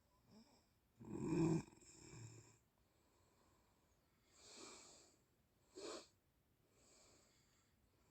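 A sleeping person snoring: one loud, low snore about a second in, then quieter breaths, a breathy one around four and a half seconds and a short, sharp one about six seconds in.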